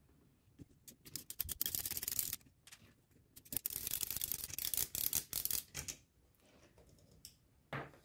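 Screwdriver turning screws out of an Olivetti Lettera 22 typewriter's carriage, a rasping metal-on-metal scrape in two bouts of about one and two seconds, then a short click near the end.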